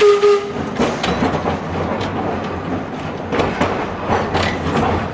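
Historic-style electric streetcar running along its track, heard from inside the wooden car: a steady rumble with irregular clicks, knocks and rattles from the wheels on the rails and the car body. A short steady tone sounds right at the start.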